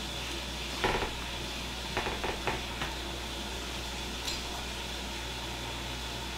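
A few light clicks and clatters of small objects being handled on a work bench: one a little under a second in, a quick cluster of three or four about two seconds in, and a single small tick a couple of seconds later, over a steady faint hum.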